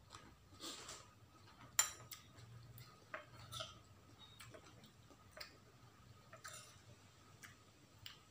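Metal spoons clicking and scraping against ceramic bowls, with soft chewing between the clicks. The sharpest click comes a little under two seconds in.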